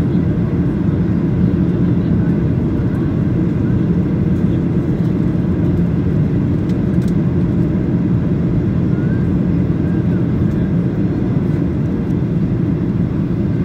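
Steady low roar of a Boeing 737-800 in flight, heard from inside the passenger cabin: its CFM56 turbofan engines and the air rushing past the fuselage make one even rumble that does not change.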